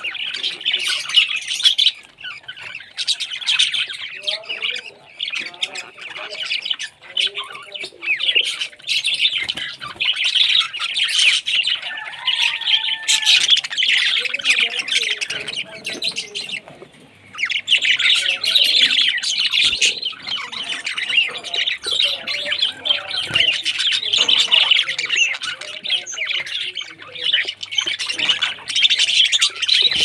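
A flock of budgerigars chattering continuously at close range, with a brief lull about halfway through.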